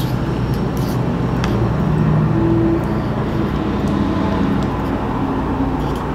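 A steady low mechanical rumble with a faint droning pitch runs underneath. Over it, a metal spoon clicks lightly a few times against a small plastic yogurt cup.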